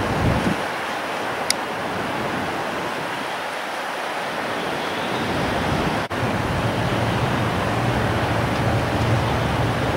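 Strong wind buffeting the microphone: a steady rushing noise with low rumbling gusts, strongest near the start and in the last few seconds. A brief click about a second and a half in.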